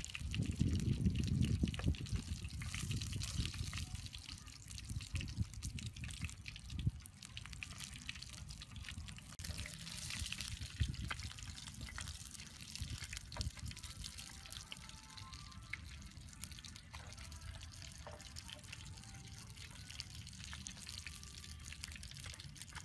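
Fish frying in oil in a frying pan: a steady sizzle with many small crackles and pops. A low rumble is louder in the first few seconds.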